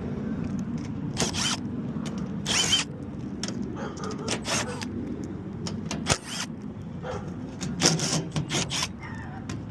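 Scattered clicks, scrapes and metallic knocks of hand tools and sheet-metal parts being handled, over a steady low hum.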